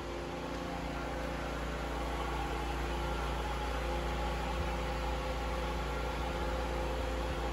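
Steady hum of a bathroom ceiling exhaust fan running, with an even hiss under it. It grows a little louder about a second in.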